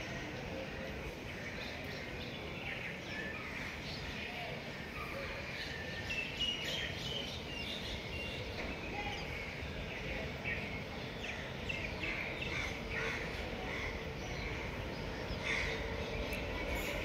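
Birds chirping and calling over a low, steady background rumble. A faint steady hum from a distant approaching train grows near the end.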